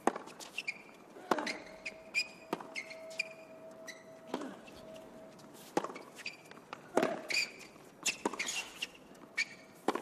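Hard-court tennis rally: a serve, then racquets striking the ball back and forth, about eight or nine sharp pops roughly a second and a quarter apart. Short squeaks from tennis shoes on the court fall between the shots.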